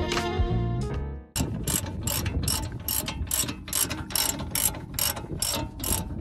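Music for about the first second, then a hand ratchet wrench clicking steadily, about four clicks a second, as a bolt is worked at the front brake caliper.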